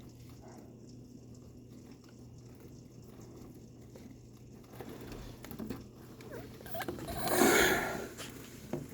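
Light rain pattering over a steady low hum, then a loud, close rustling scuff about seven seconds in that lasts roughly a second.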